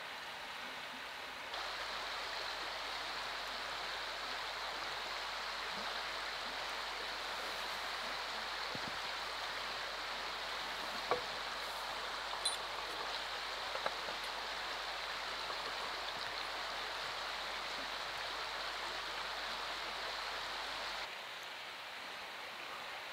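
Steady rushing outdoor background noise, tagged as running water, with three or four light clicks and taps near the middle as the iron buckle and leather strap are handled against a wooden post.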